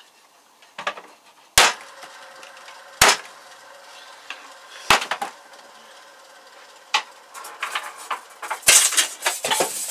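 Single sharp knocks, spaced irregularly, as tools and parts are put down on a workbench, then a burst of clatter near the end as things are rummaged through on the bench.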